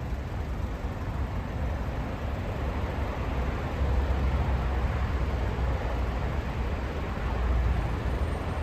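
Steady car noise heard from inside the cabin while driving slowly: a low engine and road rumble under a broad hiss, with no distinct events.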